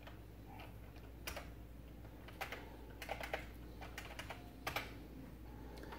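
Faint typing on a computer keyboard: irregular single keystroke clicks starting about a second in, over a low steady hum.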